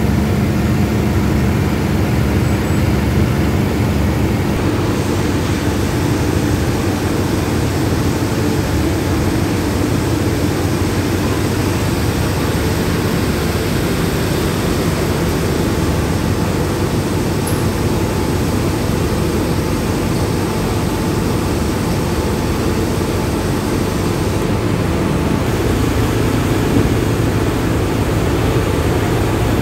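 Steady, loud drone of idling diesel railway engines alongside the standing passenger train, with a low hum running through it.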